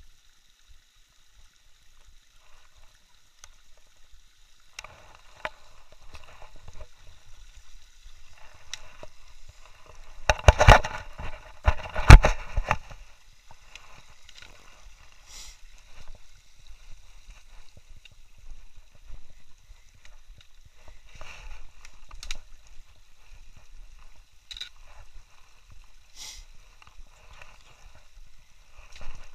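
Camera handling noise and footsteps while walking: scattered faint scuffs and ticks, with a loud bout of rubbing and knocking against the microphone about ten to thirteen seconds in.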